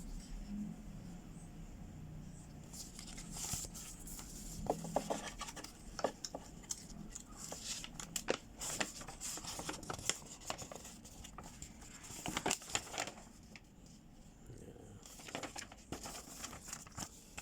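Paper and packaging being handled: irregular rustling and crinkling with scattered light taps and clicks.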